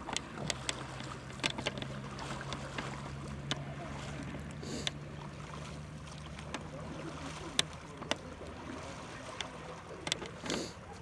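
Canoe on the water: water sloshing around the hull, with scattered sharp knocks and splashes and a steady low hum through the first half.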